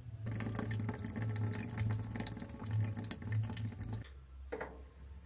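Water draining from a shut-off copper supply line, splashing into a bucket; it stops about four seconds in.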